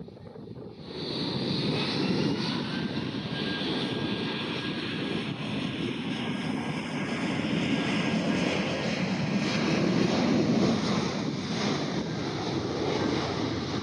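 Boeing 737-800's CFM56-7B turbofan engines running at taxi power as the jet taxis, a steady jet rush with a faint high whine. It grows louder about a second in.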